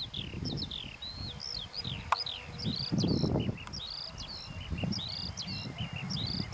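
Eurasian skylark singing: a continuous, fast, high warble of short notes that swoop up and down in pitch. Low rumbling noise rises under the song near the start and again about three seconds in.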